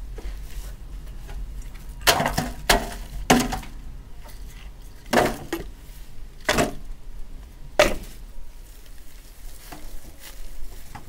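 Split firewood logs being dropped into a steel wheelbarrow, about seven loud clunks at uneven intervals, each ringing briefly in the metal tub.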